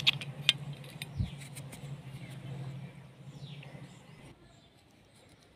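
Sharp metallic clicks from a metal clip and wire being handled against steel pliers, the loudest near the start and half a second in, with a dull thump just after a second. A low steady hum runs under them and stops about four seconds in, and a bird chirps faintly.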